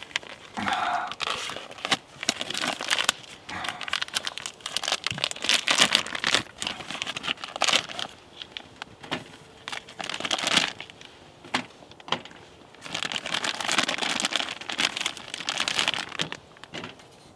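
Plastic food packaging being handled, crinkled and torn open, in irregular bursts of crackling with short pauses.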